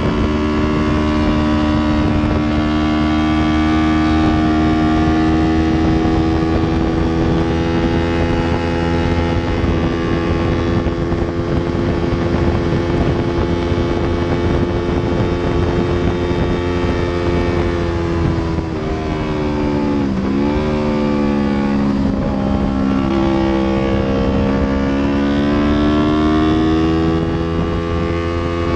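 Yamaha R3's 321 cc parallel-twin engine running hard, heard from on board while lapping a race track. The engine note climbs slowly, then about two-thirds of the way in the revs fall away with a quick sharp dip and recovery, and climb again near the end.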